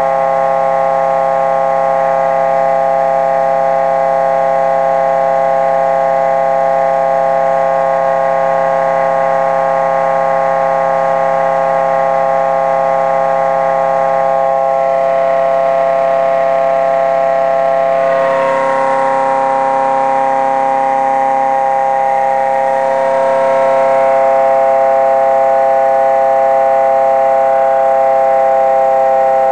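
Pulse motor generator running at low speed, giving a loud, steady whine made of several pitches. The tone changes a little about two-thirds of the way in.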